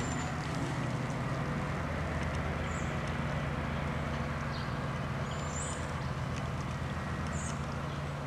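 Steady low motor hum, with a few short, faint high chirps over it.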